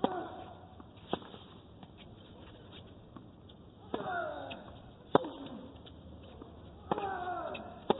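Tennis rally on a hard court: sharp racket-on-ball strikes, three or four of them followed by a player's drawn-out grunt falling in pitch.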